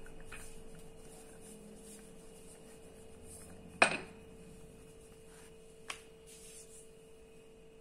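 Wooden rolling pin rolling out roti dough on a stone countertop with a faint rubbing sound, then set down with one sharp knock a little under four seconds in and a smaller knock about two seconds later.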